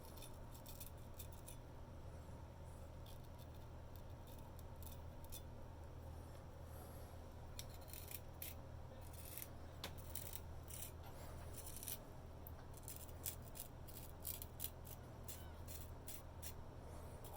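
Antique C.Mon straight razor scraping through facial stubble in short, crisp strokes, sparse at first and coming in quick runs in the second half, over a faint steady low hum.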